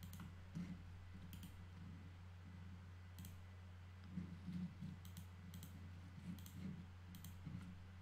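Computer mouse clicks: several scattered single clicks over a faint steady low hum.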